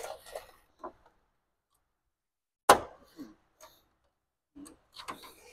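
Clips on a BMW E30's front grille being worked loose by hand: one sharp click about two and a half seconds in, with a few faint clicks and knocks either side.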